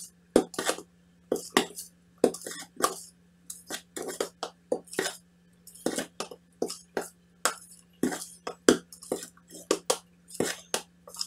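Metal spoon stirring thick cake batter in a mixing bowl, knocking and scraping against the bowl's side in irregular clinks, two or three a second, over a faint steady hum.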